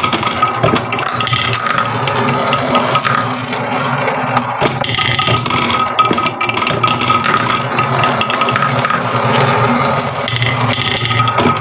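Marbles rolling and clattering down a wooden marble run, with a dense, continuous stream of small clicks and rattles.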